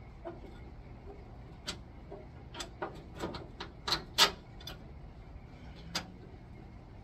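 Irregular clinks and knocks of metal parts and hand tools being handled, about ten sharp strikes at uneven intervals, the loudest about four seconds in.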